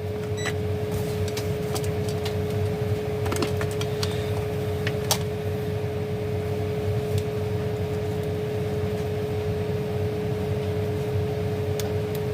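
Steady machine hum with one constant mid-pitched tone, and a few faint, light clicks.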